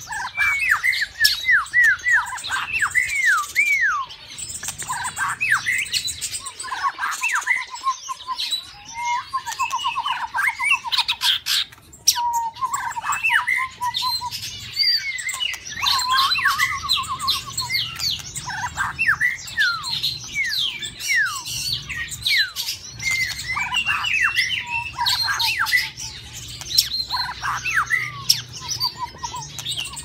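White-rumped shama (murai batu) singing a long, varied breeding-season song: quick rising and falling whistled notes, almost without a break, mixed with several short buzzing rattles.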